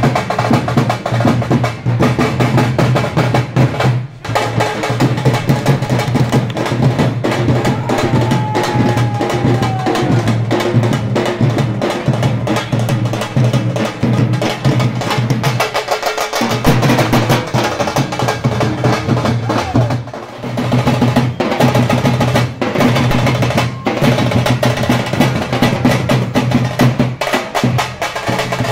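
Fast, continuous drumming on hand-held frame drums, a dense run of sharp strokes over a steady low boom, with a few short breaks.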